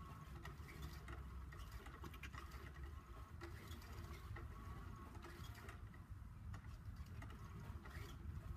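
Faint steady whirr of a motorized cat toy running under its fabric disc cover, with light scratchy ticks scattered through.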